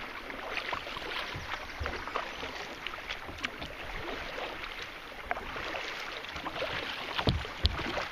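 Kayak paddle strokes splashing and dripping in river water, with two sharp knocks near the end.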